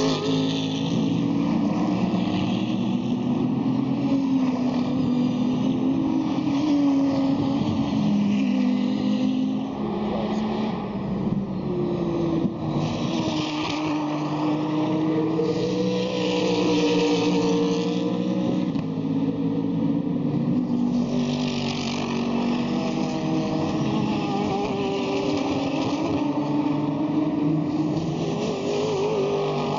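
Several GT3 and GT4 race car engines running hard, their notes overlapping and repeatedly rising and falling as the cars accelerate, shift gears and pass.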